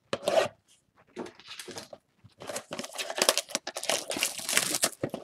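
Cellophane shrink-wrap being picked at and torn off a cardboard trading-card box, crinkling irregularly from about two seconds in. A brief handling noise as the box is picked up near the start.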